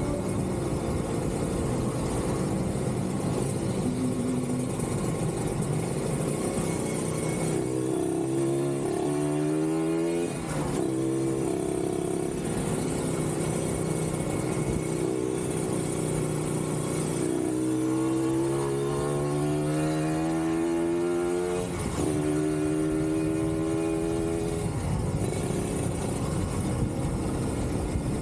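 Kawasaki Ninja 150RR's single-cylinder two-stroke engine running under way, climbing in pitch twice as it accelerates, each climb cut off by a sharp drop at a gear change, and otherwise holding a steady note.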